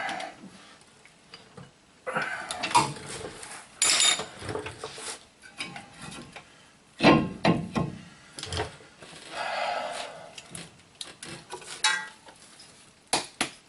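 Metal tools and brake parts clinking and clattering as they are handled, in a string of irregular sharp knocks and rattles.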